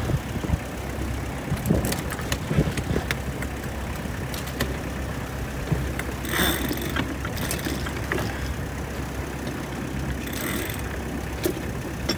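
Sailboat under way: a steady low rumble with wind and water rushing past, and scattered short knocks and clicks from the cockpit. Two brief louder rushes come about halfway through and near the end.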